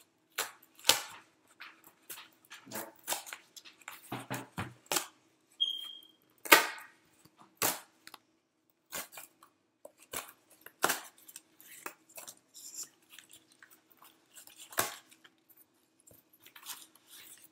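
Corrugated cardboard being torn and pulled apart by hand: a string of irregular sharp rips and crackles as the leftover cardboard is stripped away from a cut-out circle.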